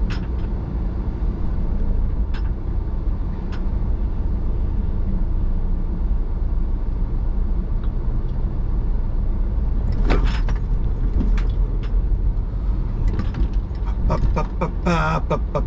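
Steady low engine and road rumble heard inside a vehicle's cabin as it rolls slowly, with a few faint clicks and a brief louder noise about ten seconds in. A rhythmic music track comes in near the end.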